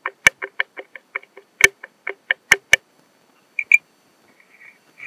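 Rapid clicking knocks from a worn suspension drop-link ball joint being rocked by hand, the play in the joint knocking about four or five times a second with a few louder strikes, then two last clicks. The knock is the sign of a worn drop link that needs replacing.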